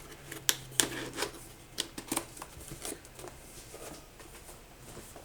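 Keyboard packaging being handled by hand during unboxing: scattered clicks, taps and rustles of box and wrapping, busiest in the first three seconds.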